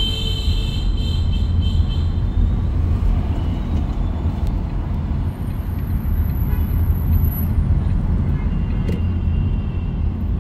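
A car driving through city traffic gives a steady low road and engine rumble. A brief high-pitched tone sounds just after the start and fades within about two seconds.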